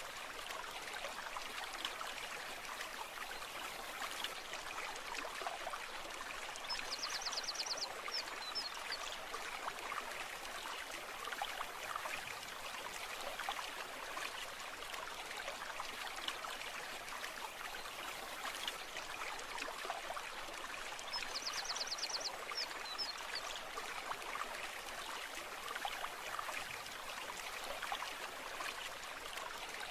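Brook water flowing steadily. A short, rapid, high-pitched trill sounds twice, about fourteen seconds apart.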